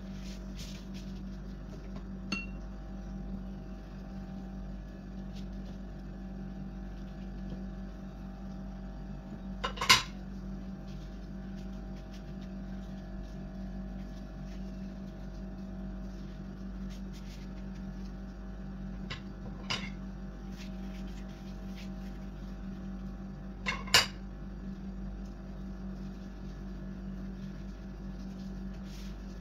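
Steady low hum with a few sharp kitchenware clinks, the two loudest about ten and twenty-four seconds in.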